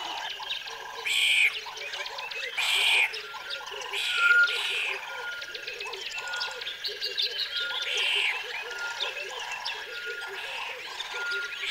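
Dense chorus of wild birds chirping and calling, with a short whistled note recurring every couple of seconds. A few louder, harsher calls stand out in the first five seconds.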